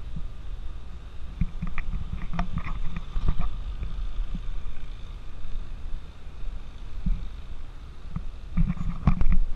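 Wind buffeting the microphone outdoors: a low, uneven rumble with scattered thumps and clicks, heaviest near the end.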